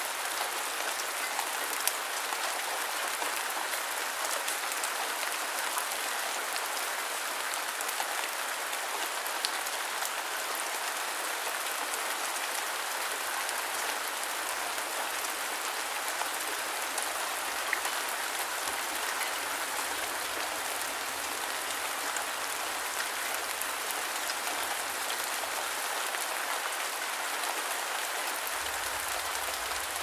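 Steady rain falling: an even hiss with scattered sharper drop ticks and no thunder.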